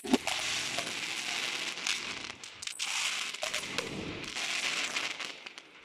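Aerial fireworks bursting: a sharp bang at the start, then dense crackling from the glittering crackle effects, which fades away near the end.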